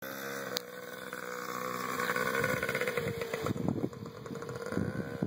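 Small child's dirt bike engine running at a fairly steady speed as it is ridden.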